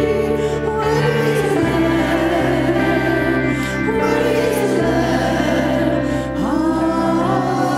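Women's voices singing a slow worship song in harmony, one voice sliding up in pitch about six seconds in, over instrumental accompaniment with sustained chords and held bass notes.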